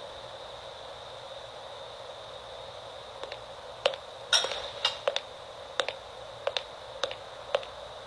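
Kitchen knife cutting vegetables on a cutting board: a series of sharp, uneven knocks, about two a second, starting about three seconds in.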